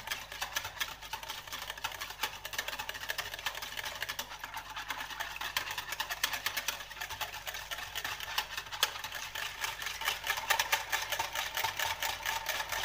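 Wire whisk beating a thin milk-and-egg mixture in a plastic bowl by hand: a fast, continuous clatter of the wires against the bowl.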